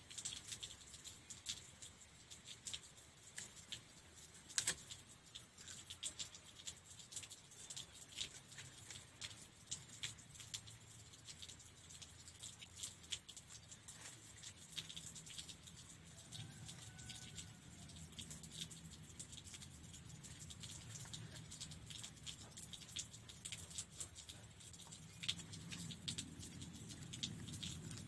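Light, scattered clicking and rustling of fence material being woven by hand, with a faint short chirp about halfway through.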